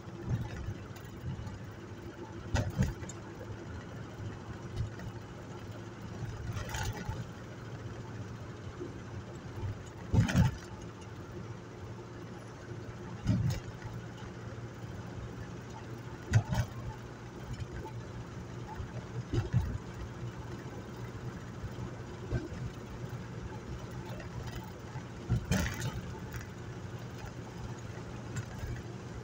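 Vehicle engine running at a steady cruise with road noise, heard from inside the cab while driving. Sharp knocks and rattles come every few seconds.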